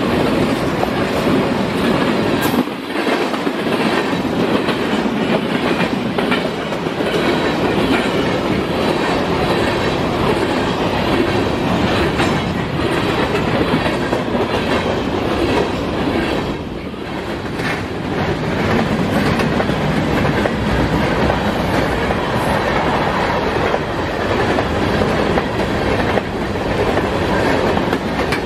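BNSF freight train passing close by: the last of its diesel locomotives go by at the start, then a long string of covered hopper cars rolls past with a steady rumble and wheels clacking over the rail joints.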